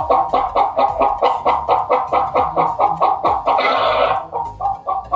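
Recorded hen clucking in a quick, even run of about five clucks a second, with a louder, harsher cackle about three and a half seconds in.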